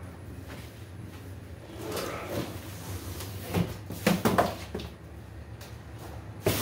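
Cardboard packaging being handled: packing inserts rustle and scrape as they are pulled out of the shipping box, with several sharp knocks about halfway through as cardboard pieces hit the box and the concrete floor.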